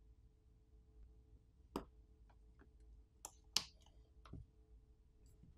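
Small sharp plastic clicks from fingers prying at the bottom speaker assembly in a rugged phone's plastic frame: one click about two seconds in, two more about a second and a half later, then a duller knock.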